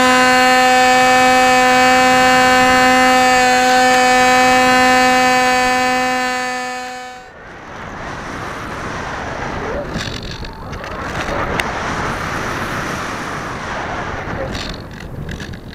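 Electric outrunner motor spinning a 6x4 pusher prop on an AXN Floater-Jet RC plane at full throttle: a loud, steady high whine at one pitch. About seven seconds in the whine stops abruptly, leaving only wind rushing over the on-board microphone as the plane dives and climbs unpowered.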